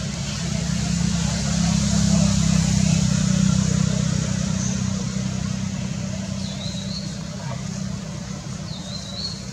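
Low engine rumble that swells to its loudest two to three seconds in and then slowly fades, like a vehicle passing. A few short high chirps sound near the end.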